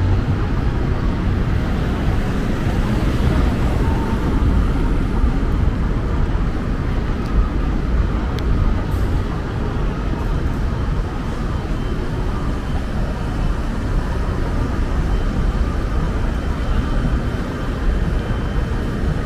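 Busy city street ambience: steady traffic noise from passing cars on a large road.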